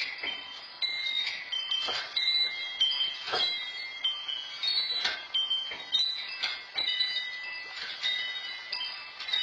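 Metal wind chimes ringing continuously in several pitches, struck again and again about once or twice a second as the earthquake shakes them.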